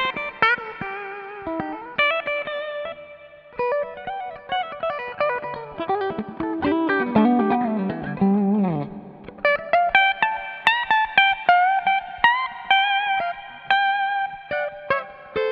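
Eko LP-P90 electric guitar with P90 pickups playing single-note lead phrases with string bends and vibrato. About eight seconds in there is a long downward slide, followed by held, wavering high notes.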